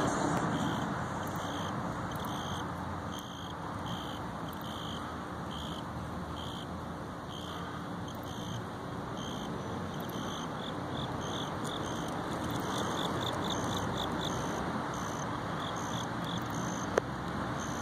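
Outdoor background of a steady low rumble like distant road traffic. Over it a high chirp repeats about once a second, quickening into a fast trill partway through, and one sharp click comes near the end.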